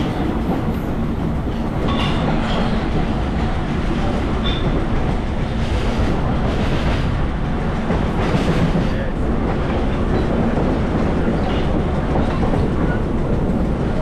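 Vintage BMT AB Standard subway train running along the track: a steady, loud rumble of wheels on rail, with scattered clicks from the rail joints.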